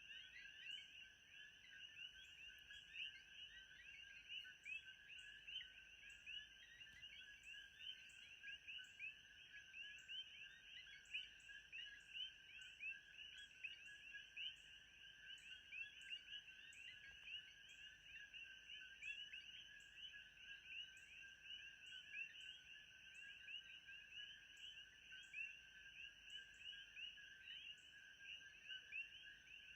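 Faint, dense chorus of many small chirping animal calls, overlapping without pause, with a steady thin high tone and faint regular ticks about twice a second above it.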